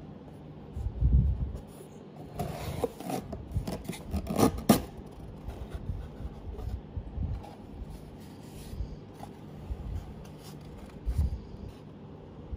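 A cardboard shipping box being handled and opened by hand: cardboard flaps rubbing and scraping, with a dense stretch of scraping and crackling around two to five seconds in, and several dull thumps as the box is moved on the table.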